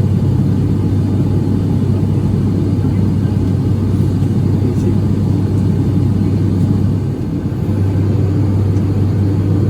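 Steady engine and airflow rumble heard inside an airliner's passenger cabin, mostly deep and low, with a steady low hum underneath and a brief dip in level about seven seconds in.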